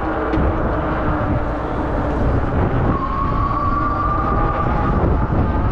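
Wind rushing over the camera microphone on a moving bicycle, with street traffic in the background. A faint steady whine comes in about halfway through.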